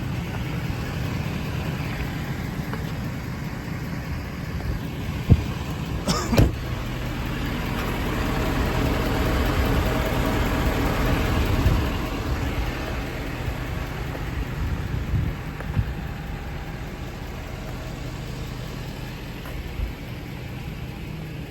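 Ford 6.7 Power Stroke V8 diesel idling steadily, with two sharp knocks a little over five and six seconds in. The running gets a little louder for a few seconds around the middle.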